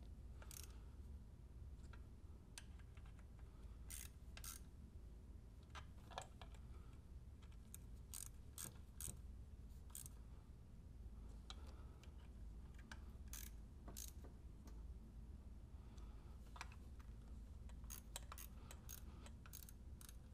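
Scattered sharp clicks and light taps from parts being fitted by hand on top of an engine during reassembly, coming irregularly with a few quick runs of clicks, over a low steady hum.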